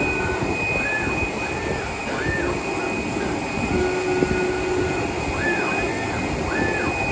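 JUITA JT-1512B CNC template cutting machine working: steady mechanical noise with a constant high tone, and short motor whines that rise and fall in pitch, in runs of three or four, as the head moves across the board.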